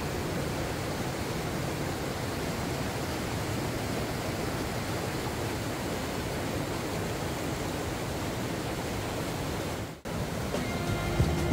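River rapids rushing over and between rock chutes: a steady, full roar of whitewater, cutting out for a moment about ten seconds in.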